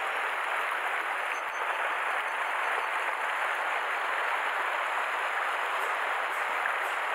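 Rushing river water: a steady, even hiss of current running over a riffle.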